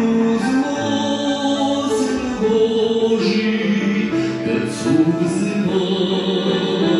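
Men's and women's voices singing a Christian hymn together in held, slow-moving notes.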